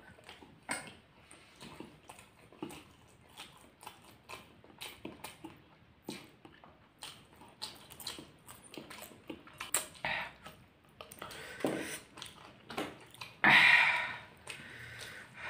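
Close-up chewing and mouth smacking of people eating fried eggs with raw chilies, with breaths puffed out through pursed lips against the chili heat. The sounds grow denser later on, with one louder burst of noise near the end.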